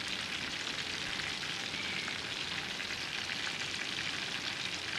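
Breaded stuffed chicken breasts frying in a pan of hot oil: a steady, dense sizzle and crackle.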